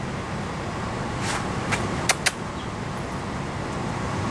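Steady low rumble of road traffic, with a few light clicks near the middle.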